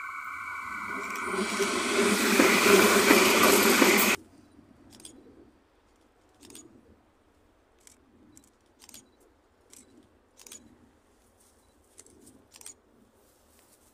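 A light-rail tram approaching close on a curved track, its running noise swelling to a loud rush with a steady high squeal, which cuts off suddenly about four seconds in. After that there are only faint, scattered clicks.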